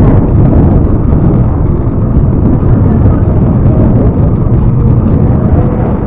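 Wind buffeting the microphone on a moving bicycle: a loud, steady low rumble.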